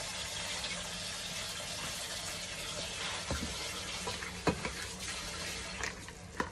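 A pot of pork, sausage and vegetables simmering in a little water under a glass lid, giving a steady watery hiss. From about three seconds in, the lid comes off and a cooking spoon stirs the contents, with a few sharp knocks against the pot.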